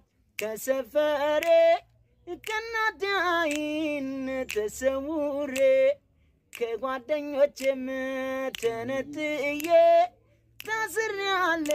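A high voice singing a melody in long, wavering held notes, broken by short pauses about two, six and ten seconds in.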